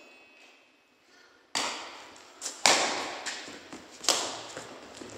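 Badminton rackets striking a shuttlecock in a rally: sharp hits about every second and a half, starting after a quiet first second and a half, each one echoing briefly.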